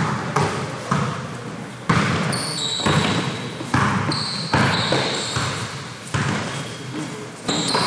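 A basketball bouncing on a gym floor, sharp bounces roughly once a second, each ringing out in the hall. Short high squeaks come in between the bounces.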